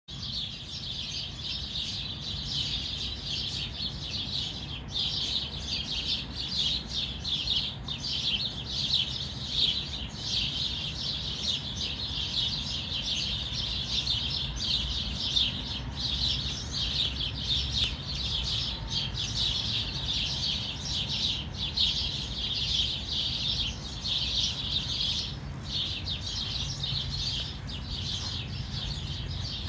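Dense, unbroken chorus of high, rapid chirping that goes on steadily, with a steady low hum underneath.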